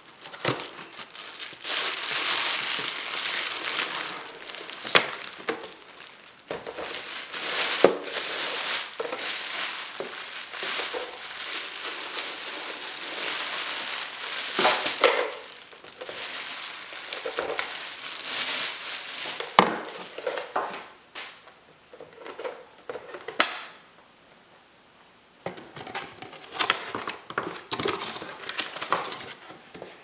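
Plastic wrapping and cardboard packing crinkling and rustling as a coffee maker is unpacked from its box, with a few sharp knocks. The rustling comes in long stretches and stops for about two seconds past the two-thirds mark before starting again.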